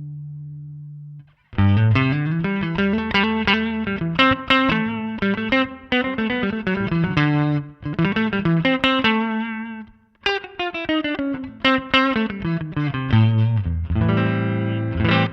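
Fender Stratocaster electric guitar played through an amp model of a Nux MG300 multi-effects processor: a held note rings out and stops about a second in, then phrases of quickly picked single notes and chords, broken twice by brief pauses.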